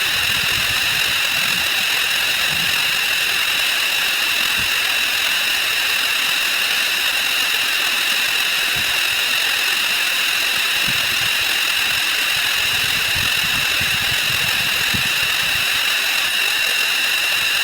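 A stream of counting sound effects sped up 256 times, blurred into one loud, steady, harsh hiss with a buzzing edge.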